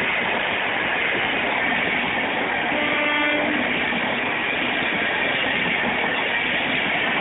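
Rajdhani Express passenger coaches rolling past at speed, a steady rushing noise of wheels on rail. A short pitched tone sounds once, about three seconds in.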